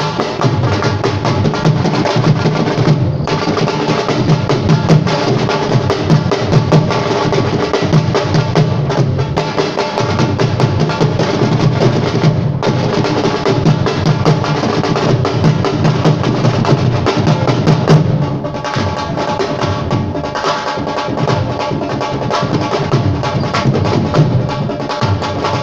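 Live drum music: fast, dense drumming played without a break, a little quieter after about eighteen seconds.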